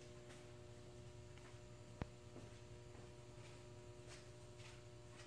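Near silence: a faint steady hum, with one sharp click about two seconds in.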